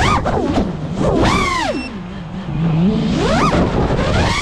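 FPV freestyle quadcopter's brushless motors and propellers whining as the throttle is punched and chopped through loops, the pitch swooping up and down several times and sinking lower and quieter about two seconds in.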